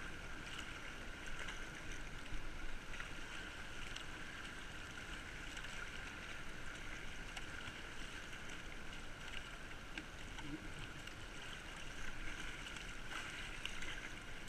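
Fast-flowing, silty river water rushing along a kayak's hull, with occasional short splashes from the paddle blades.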